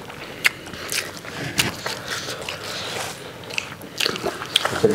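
People eating by hand: irregular wet chewing smacks and crunchy bites of fried chargha chicken and biryani rice, with a few sharper clicks standing out.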